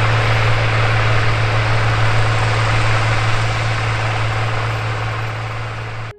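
Large diesel farm tractor working steadily under load while pulling a field cultivator through tilled soil: a constant deep engine drone under a broad rushing noise. It cuts off suddenly just before the end.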